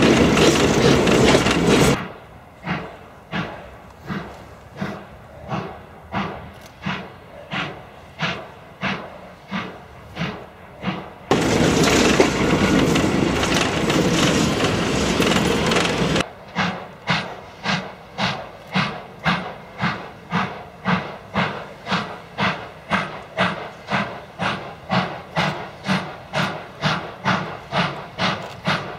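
Double-headed Italian steam locomotives FS 625 100 and FS 880 051 working a train. The exhaust beats come steadily at about one and a half a second, then quicker at about two a second later on. Twice, while the engines are close by, a loud rush of steam and running noise covers the beats for a few seconds, once at the start and once about halfway.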